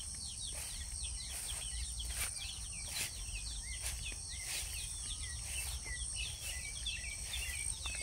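Small birds chirping in many short, quick, mostly falling notes throughout, over a steady high trill of insects.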